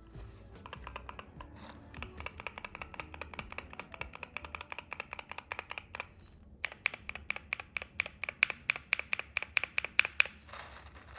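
Keys on a Wooting 60HE Hall-effect keyboard pressed rapidly along one row in two runs, in a side-by-side comparison of Wooting Lekker switches and Gateron Jade switches. The second run, starting about seven seconds in after a short pause, is louder and sharper.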